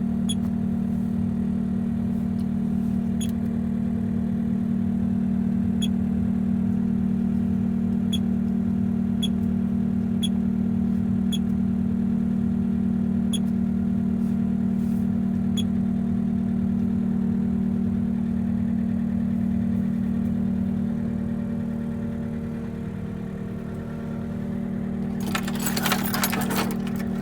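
Kioti SL750 skid steer's four-cylinder turbo diesel engine idling steadily, heard from inside the cab. The engine dips briefly and comes back a little before the end, and near the end there is a burst of clicking and rattling.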